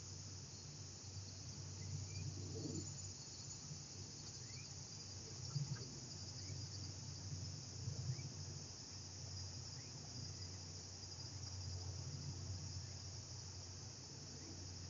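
Steady high-pitched insect chirring, like crickets, over a low hum, with a few faint short chirps now and then.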